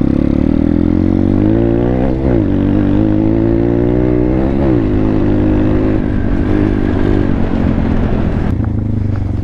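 2019 Thumpstar 140cc pit bike's single-cylinder four-stroke engine running under way. The revs climb, drop sharply and climb again twice in the first five seconds, then hold fairly steady.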